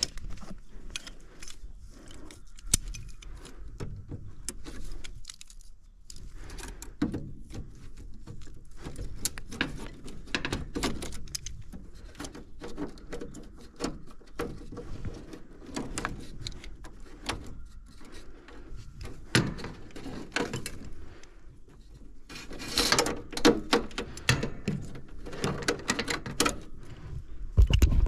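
Irregular clicks, rattles and scrapes of hands working wires and connectors at a heat pump's defrost control board in the outdoor unit's sheet-metal control panel, with a busier stretch of rattling near the end.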